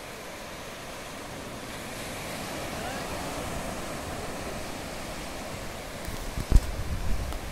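Small surf waves breaking and washing up a flat sandy beach, a steady rushing hiss that swells a little in the middle. Near the end, wind buffets the microphone with low thumps, one of them the loudest sound.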